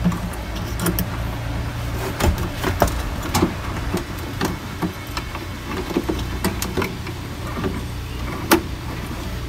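Irregular clicks and knocks of parts being handled while the wires of a replacement washing-machine drain motor are connected, with a sharper knock near the end, over a steady low hum.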